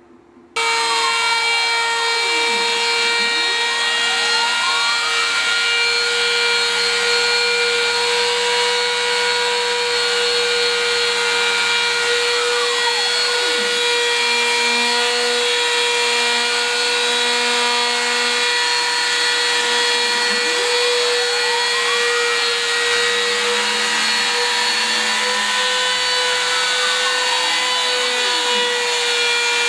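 Porter-Cable router motor on a PDJ CNC router starting up about half a second in, then running at speed as its end mill cuts a slot through thin sheet aluminum: a loud, steady whine and cutting hiss. Fainter tones sweep down and back up several times.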